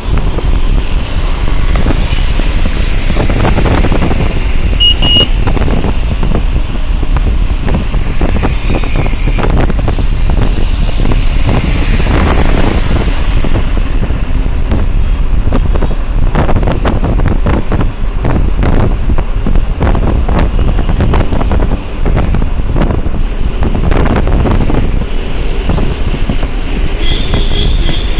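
Loud, steady road-traffic noise with low rumble and wind buffeting on the microphone. A short high beep sounds about five seconds in, and another near the end.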